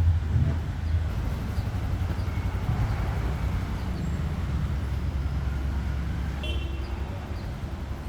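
Steady low rumble of street traffic, with a short vehicle horn toot about six and a half seconds in.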